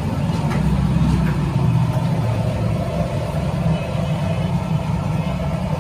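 An engine running steadily, a continuous low rumble, with faint voices behind it.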